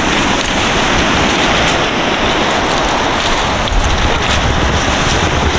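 Wind buffeting the microphone over the steady wash of rough surf breaking on a shingle beach.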